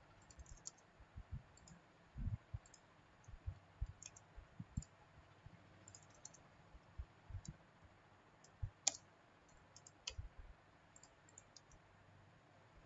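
Irregular computer mouse clicks and key presses, a soft click every second or so, with two sharper clicks about nine and ten seconds in.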